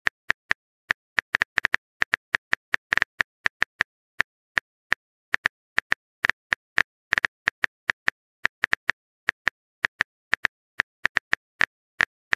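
Smartphone keyboard typing sound effect: a long run of short, crisp key clicks at an irregular pace, several a second.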